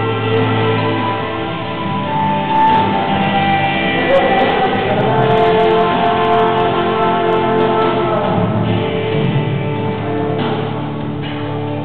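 Gospel worship song playing: singing over sustained instrumental accompaniment.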